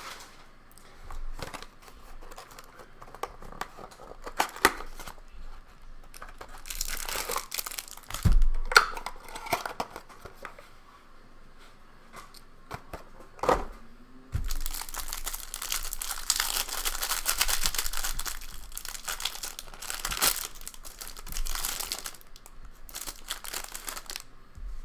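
A cardboard hanger box of baseball cards being torn open and its plastic-wrapped stack of cards unwrapped: crinkling wrapper and tearing cardboard, with scattered clicks and two sharp knocks about 8 and 13 seconds in.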